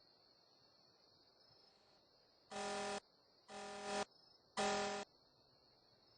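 Car horn honking in short pulses as a car alarm goes off: three honks of about half a second each, roughly a second apart, after a short pause.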